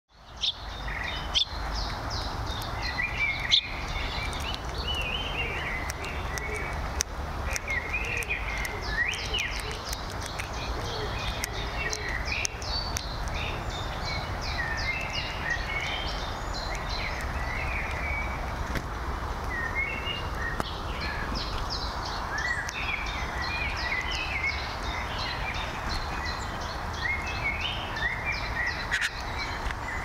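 Small songbirds chirping and calling again and again over a steady hum of outdoor background noise, with two sharp clicks in the first few seconds.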